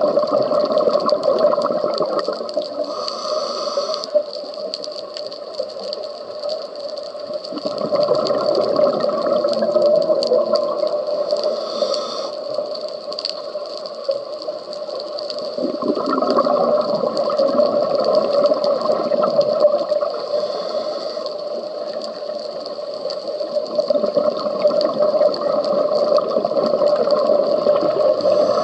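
Scuba diver's regulator breathing, heard underwater: breaths come about every eight seconds, each a brief hiss of inhalation and a longer stretch of bubbling exhalation, over a steady hum.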